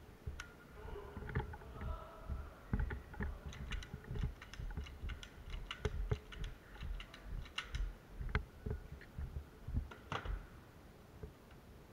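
Irregular low thumps and knocks, like footsteps and gear handling, with a run of sharp clicks clustered in the middle and a sharper crack near the end.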